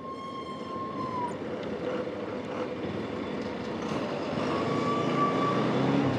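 Bajaj Pulsar NS200 motorcycle riding slowly, its engine running under wind and road noise. Two faint steady tones are heard, one briefly at the start and another about four and a half seconds in.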